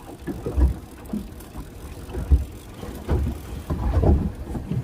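Small boat on choppy sea: a low rumble with irregular low thumps, about five, as waves and gear knock against the hull.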